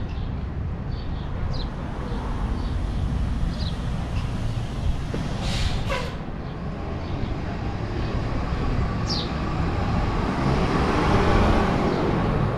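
Downtown street traffic: a steady rumble of passing vehicles that builds as a vehicle passes close near the end. There is a short hiss about halfway through, and a few short high chirps.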